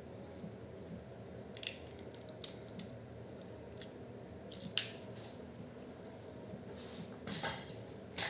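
Scattered sharp clicks and a short crunching burst near the end, over a steady low hum: small hand work, such as cutting or handling scrap.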